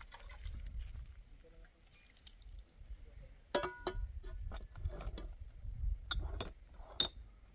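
Metal plates and dishes clinking and knocking together as they are washed by hand. One sharp clink about halfway through rings on briefly, and a few more knocks follow near the end, over a low rumble.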